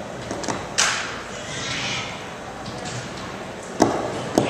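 Crowd murmuring in a large echoing gymnasium, broken by a few sharp knocks: one about a second in that rings on in the hall, and two close together near the end.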